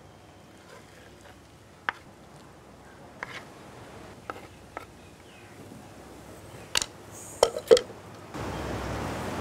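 Light, sparse taps and clicks of a flat spatula against a stone grinding slab as sautéed masala is scraped off onto it, with a cluster of louder knocks and a short scrape near the end. A steady background hiss rises just before the end.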